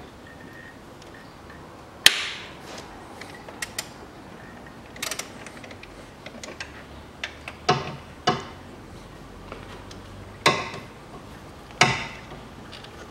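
Metal hand tools clinking and knocking against parts in a car's engine bay: about half a dozen sharp, irregular metallic knocks, the loudest about two seconds in.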